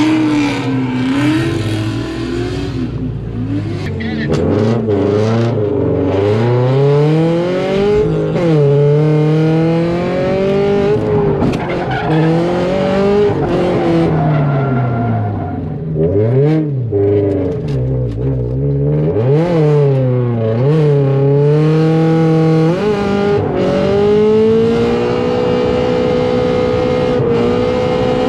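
Drift car's engine revving hard through a run, its pitch rising and falling over and over as the throttle is worked and gears change, then holding a steady note near the end.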